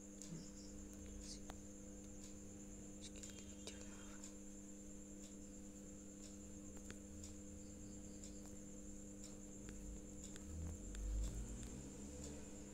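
Quiet room tone: a steady electrical mains hum with a few faint clicks, and a brief low rumble near the end.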